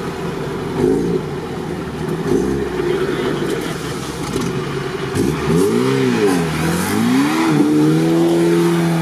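Off-road 4x4's engine revving hard, its pitch swinging up and down in a couple of rev swells, then held at high revs near the end.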